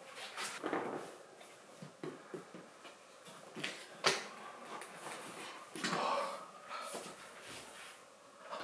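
White cardboard iMac packaging being handled: scattered rustling and scraping of the box inserts and trays as they are lifted and moved, with one sharp knock about four seconds in.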